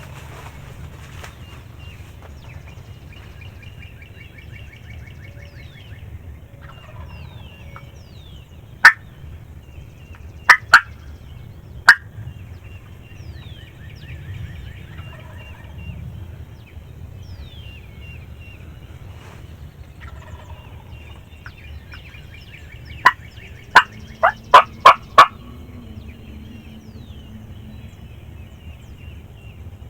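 Wild turkey gobbles, in two loud bouts of sharp notes, one roughly a third of the way in and a longer one a little past the middle, over a dawn chorus of songbird calls and trills.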